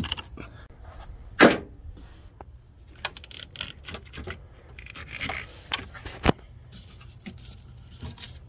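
Scattered handling noise: irregular clicks, scrapes and knocks of hands working among engine-bay parts, with a sharp knock about a second and a half in and another a little after six seconds.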